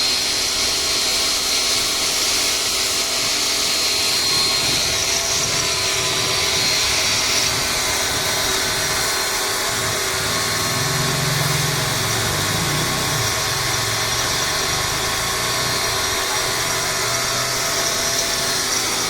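A motor-driven machine running steadily, with a hiss over a set of steady whining tones. A lower hum swells briefly about halfway through.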